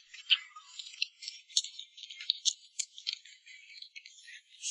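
Biting into and chewing a soft, oily sachima (a fried-dough cake bound with syrup), heard as a run of faint, irregular sticky crackles and clicks.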